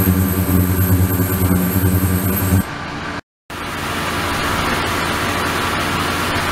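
Water from a hose running into a tank of water over a steady low hum. About two and a half seconds in the hum stops, and after a brief gap of silence the rushing of the water goes on alone.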